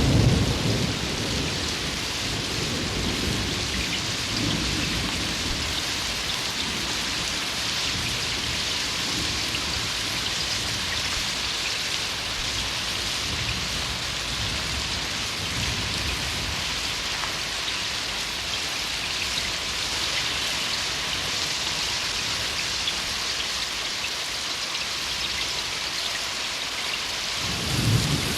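Rain sound effect: a steady, heavy hiss of rainfall with low thunder rumbles, one dying away in the first second and another swelling near the end.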